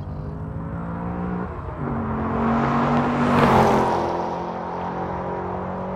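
Car engine running at high revs. Its pitch steps up about a second and a half in, and it swells to its loudest a little past halfway with a rush of noise, then settles slightly lower in pitch, as of a car passing by.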